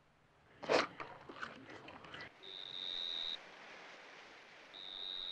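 Quiet film soundtrack. A single sharp sound comes about a second in, then faint rustling, then a high, steady whistle-like tone held for about a second, sounding twice.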